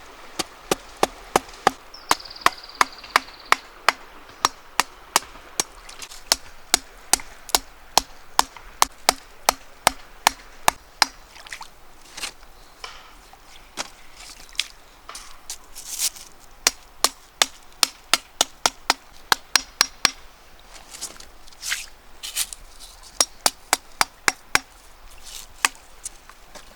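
Steady chopping with a blade: sharp, evenly spaced strokes at about three a second, pausing briefly a few times.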